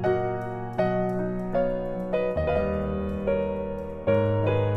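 Background piano music: notes struck about once a second over held bass notes.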